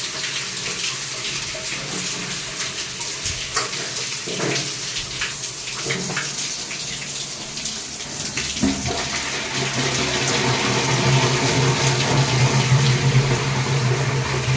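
Water running and splashing from a tap or pipe. A steady low hum joins in about nine seconds in.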